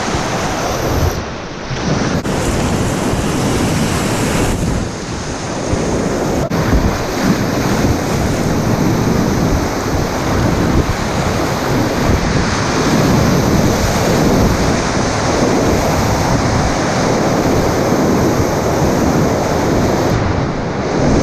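Loud, steady rush of river whitewater rapids at medium-high flow, heard from a kayak running them.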